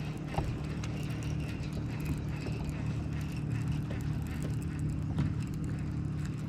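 A boat motor hums steadily under scattered light clicks and ticks.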